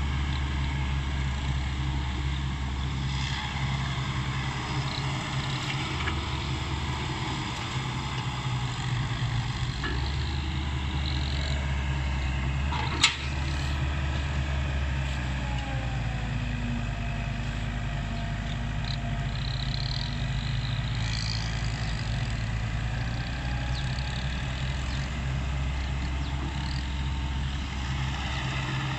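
Komatsu hydraulic excavator's diesel engine running steadily while digging, with one sharp knock about halfway through.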